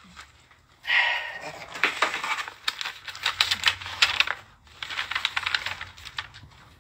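Packaging being unwrapped by hand: crinkling and rustling of wrapping with many small clicks, starting about a second in, with a short break after the middle.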